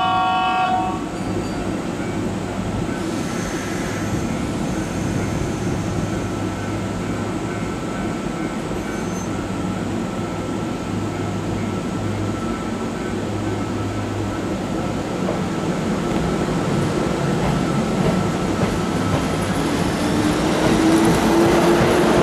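Kintetsu 15400 series 'Kagirohi' electric train standing at the platform with a steady low electrical hum. In the last few seconds it pulls away and passes close by, getting louder, its traction motors whining up in pitch as it accelerates.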